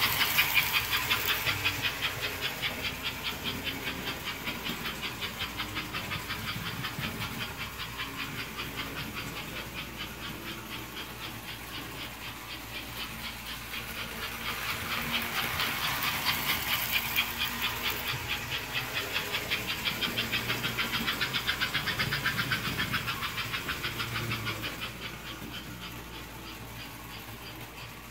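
American Flyer 301 4-4-2 Atlantic toy steam locomotive running on its track, its choo-choo sound unit giving a rapid, even chuffing over the whir of the motor and wheels. The sound swells twice as the train comes near and fades near the end.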